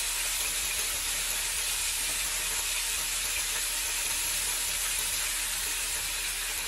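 Chicken pieces and tomatoes frying in hot oil in an aluminium karahi: a steady sizzle.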